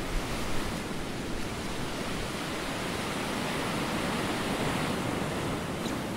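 Steady, even rushing noise from a film's soundtrack, like sea surf, with a few faint high ticks near the end.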